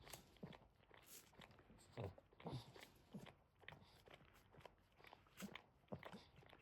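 Boston terrier mother licking her newborn puppies clean: faint, irregular wet smacks and clicks.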